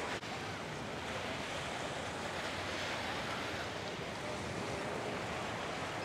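Small waves washing onto a sandy beach: a steady rush of surf, with some wind on the microphone.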